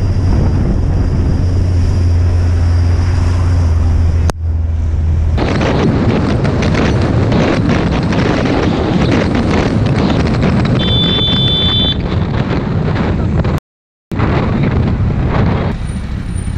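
Motorcycle running on the road, heard from the rider's camera: a steady engine hum, then after a sudden change about four seconds in, heavy wind noise on the microphone over the engine. There is a brief drop-out near the end.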